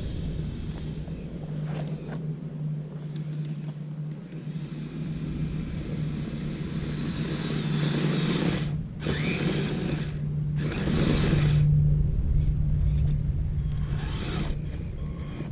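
Kyosho Blizzard radio-controlled tracked snow vehicle running: its electric motor and tracks churn through snow with a steady hum. The noise eases off briefly twice, about nine and ten and a half seconds in, and there is a short rising motor whine after the first break.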